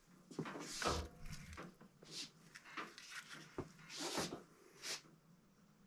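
Faint handling noises: about five short rustles and knocks as a soldering iron and a spool of solder are picked up.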